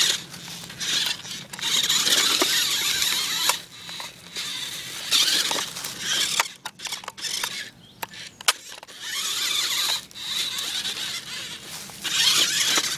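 Toy-grade RC rock crawler truck's electric drive whining in repeated bursts of a second or two as it is throttled over rocks. There are scattered sharp clicks and knocks in the middle.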